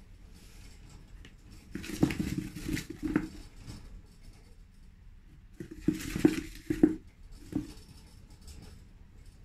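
A degu's feet and claws scrabbling in sand inside a plastic sand bath, in two short bursts of scratchy clicking, about two seconds in and again about six seconds in.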